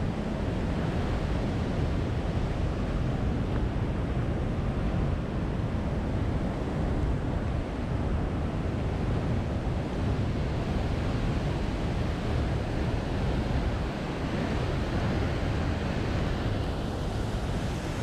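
Steady roar of rushing water from Tegenungan Waterfall, with low rumbling wind noise on the microphone.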